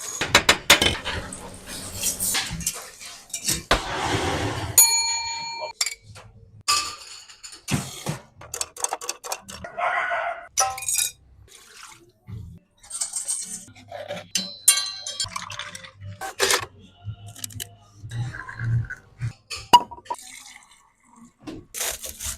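A quick run of bar sounds: glasses and dishes clinking and knocking, cutlery rattling, and a ringing ding about five seconds in, with short hissing stretches between them.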